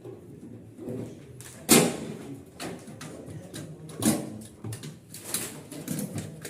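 Knocks, clicks and scraping of tools and metal parts being handled while a front-loading washing machine is taken apart, with the loudest knock nearly two seconds in and another about four seconds in.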